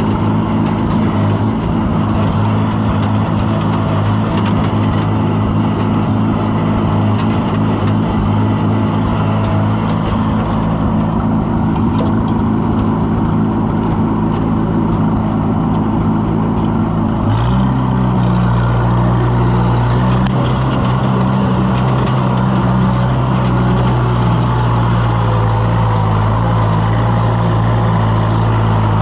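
Farm tractor's engine running steadily, with a sudden shift in its note a little over halfway through.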